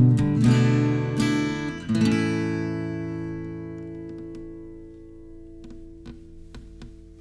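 Steel-string Yamaha cutaway acoustic guitar: a few strummed chords, the last about two seconds in, then the final chord of the song left to ring and fade slowly away, with a few faint ticks near the end.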